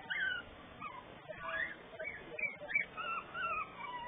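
Three-and-a-half-week-old puppies whimpering in a string of short, high cries that rise and fall in pitch.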